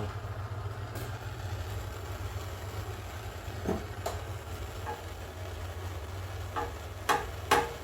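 A steady low machine hum, with a few sharp knocks and clinks scattered through it that get louder near the end.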